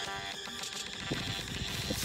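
Background music with a sustained melody. In the second half, low muffled thumps and rubbing sounds play under it.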